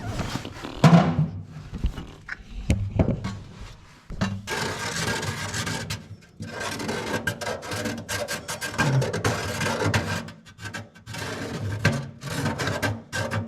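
Scraping and rubbing on sheet metal, with a few knocks in the first seconds and a rough, continuous scraping from about four seconds in, broken by short pauses.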